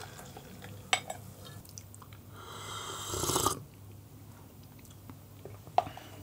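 A person slurping a sip of freshly brewed pour-over coffee from a ceramic cup to taste it: one long rising slurp a little past two seconds in, lasting about a second and a half. Light clicks about a second in and near the end.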